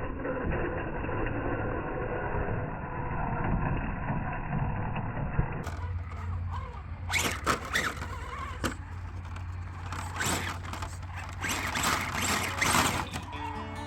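Axial SCX10.2 RC crawler truck running on its brushless motor, the motor and gears whirring. About halfway through the sound changes to a steady low hum with several short louder bursts of noise.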